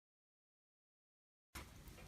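Near silence: the sound track drops out completely, and faint room noise returns about three-quarters of the way through.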